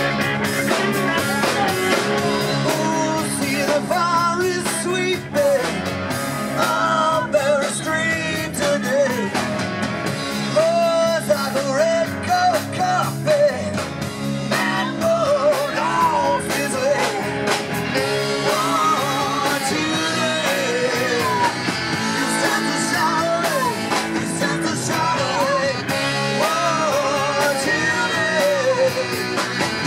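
A rock band playing live, with a man and a woman singing over electric guitar, bass and drums.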